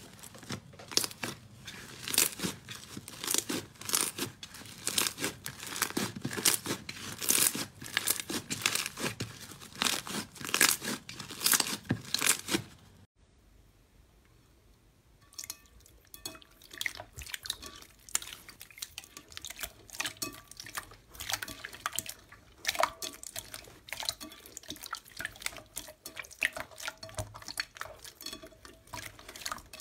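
Hands squeezing and pressing a glossy slime, a dense run of sticky crackles and pops. About 13 seconds in the sound stops for a moment, then hands pressing a clear purple glitter slime in a glass bowl give softer, sparser wet clicks and pops.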